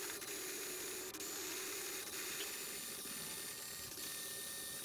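Margaritaville Maui On-the-go battery-powered portable blender running its automatic cycle, shaving ice in the top section and blending in the base. The cycle is heard sped up as a steady mechanical whir with a few faint clicks.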